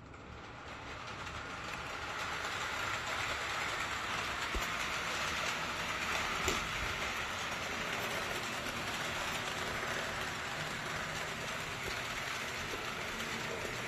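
ACME Class 371 HO-scale model electric locomotive running on layout track: a steady hiss of running noise that builds up over the first couple of seconds and then holds, with a few faint clicks and one sharper click about halfway through.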